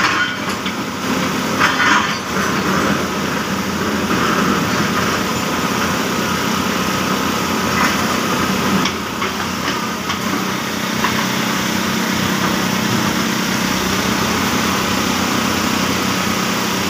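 Hyundai 220LC crawler excavator's diesel engine running steadily under load as the bucket digs and lifts broken concrete rubble, with a few short clatters of rubble about two seconds in and again around eight to nine seconds.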